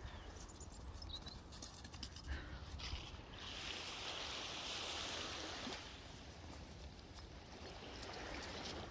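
Outdoor beach ambience: a low wind rumble on the microphone, with a soft rushing hiss that swells for about two and a half seconds in the middle.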